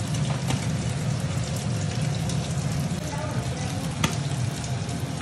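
Chicken curry sizzling and bubbling in a kadhai as it finishes cooking: a steady hiss over a constant low hum, with a sharp click about four seconds in.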